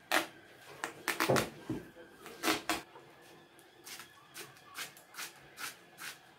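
Kitchen knife cutting a watermelon wedge into pieces: a series of short, crisp clicks as the blade goes through the flesh, a few louder ones in the first three seconds, then evenly spaced at about two or three a second.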